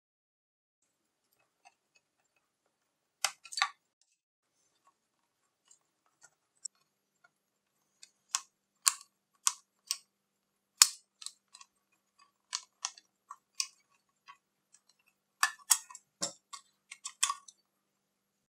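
Scattered sharp clicks and taps of a small screwdriver and fingers working the plastic clips and case of a Sony WM-F63 Sports Walkman as a circuit board is released from it. A few clicks come early, a run follows in the middle, and a quick cluster comes near the end.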